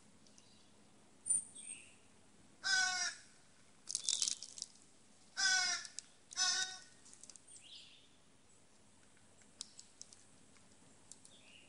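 A crow cawing three times, harsh calls about half a second each. Between the first and second caw comes a brief, hissing rustle about as loud as the caws, and there are a few faint clicks.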